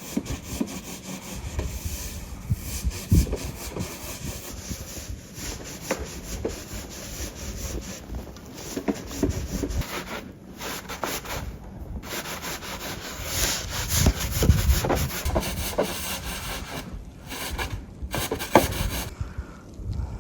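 Snow shovel scraping and pushing snow across the ground in repeated, irregular strokes.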